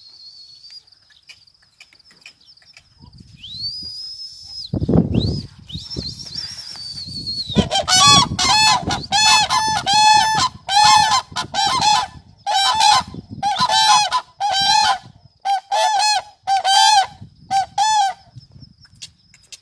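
Koonj cranes calling: a loud, rhythmic run of about a dozen trumpeting calls with short gaps between them, starting about eight seconds in. High whistling tones come before the calls.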